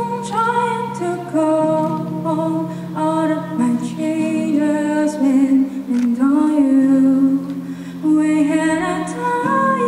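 A woman singing a slow melody over held low accompaniment chords.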